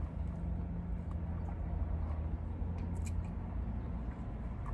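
Low steady hum inside a car's cabin, fading out about three seconds in, with a few faint clicks.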